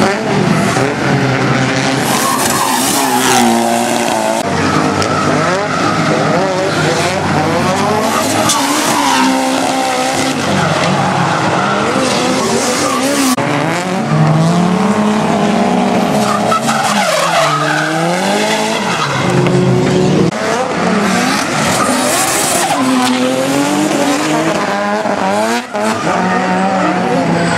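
Drift cars sliding through a corner one after another, their engines revving up and falling back again and again over the skidding squeal of the tyres.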